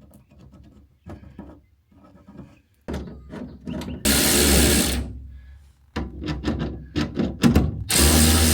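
Power drill run in two short bursts of about a second each, one about four seconds in and one near the end, with clicks and scrapes of metal parts being handled between.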